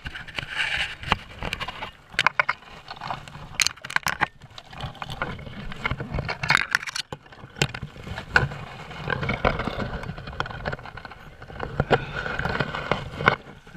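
Rustling and scraping of dry branches and twigs brushing against a head-mounted camera and clothing as someone pushes through dead brush, with many irregular sharp snaps and clicks.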